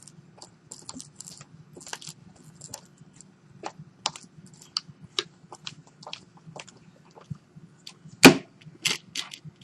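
Irregular small clicks and taps of small hard parts and tools being handled, with one louder knock about eight seconds in, over a faint steady hum.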